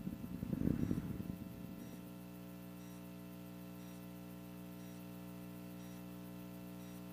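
Steady electrical hum in the broadcast audio, with a faint high tick about once a second. A louder rough noise at the start fades out about two seconds in.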